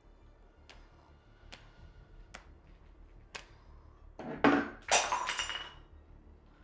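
A drinking glass knocked off a table shatters on a tile floor about four seconds in: two loud crashes, the second trailing off in tinkling shards. It follows four light taps.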